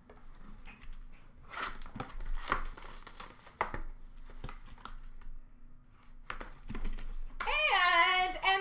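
Card pack wrapper being torn open and crinkled by hand, a run of quick rustles and tears, while opening Upper Deck Clear Cut hockey card packs. Near the end a louder high, wavering voice comes in, humming or singing a few notes.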